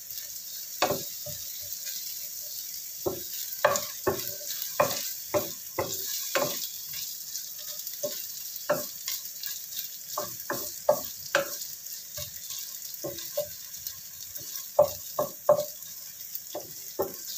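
Shallots, garlic and ginger sizzling in oil in a frying pan, with a steady hiss. A wooden spatula stirs them, knocking and scraping against the pan at irregular intervals.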